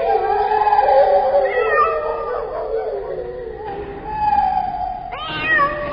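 Long, drawn-out howling calls from two or more animals overlapping, each held for a second or more and wavering slightly in pitch. A new call rises sharply about five seconds in.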